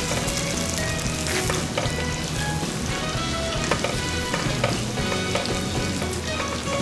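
Batter-coated Spanish mackerel pieces deep-frying in a pot of hot oil: a steady sizzle with frequent crackles and pops.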